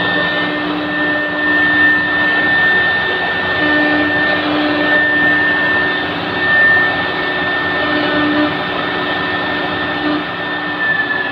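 High-speed spindle of a three-head CNC router engraving a wood door panel: a steady high whine over the hiss of the bit cutting wood. Near the end the whine begins to slide down in pitch.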